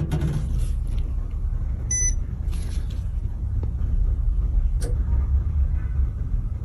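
A steady low hum with a short electronic beep about two seconds in and a single click near five seconds.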